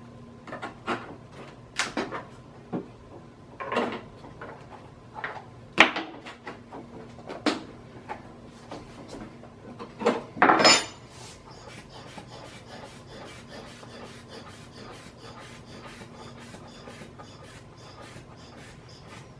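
Scraping, rustling and sharp knocks as an inflatable air-wedge shim is pushed into the seam of a fiberglass mold, the loudest knocks about ten seconds in. After that its rubber hand-pump bulb is squeezed over and over: a quick, even run of faint clicks.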